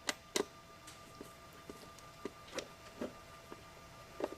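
Phillips screwdriver turning out small screws from motorcycle plastic bodywork: a couple of sharp clicks at the start, then light ticks about twice a second as the screwdriver is worked.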